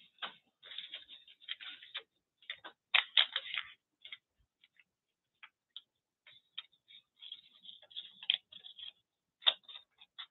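Loose paper collage scraps rustling and crackling as a hand sorts through a pile of them, in irregular clusters of small crinkles with a sparser pause in the middle.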